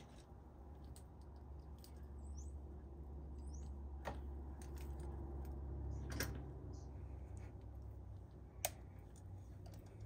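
Quiet outdoor ambience: a steady low rumble with a few sharp clicks and two faint, short, high chirps.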